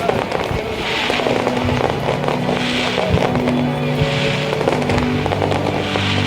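Aerial fireworks going off in a dense, continuous crackle of pops, with music playing along with it.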